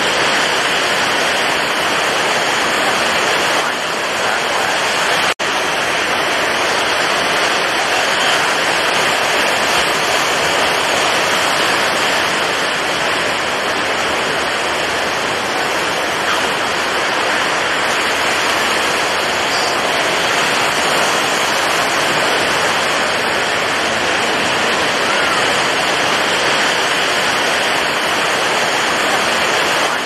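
Steady, dense rain noise, an even rushing hiss that cuts out for an instant about five seconds in.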